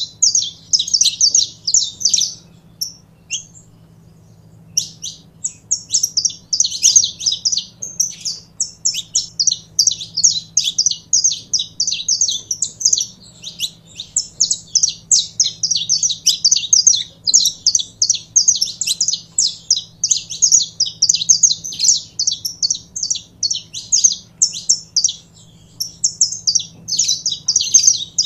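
Saffron finch (Sicalis flaveola) singing a long run of rapid, high chirping notes, with a pause of about two seconds near the start.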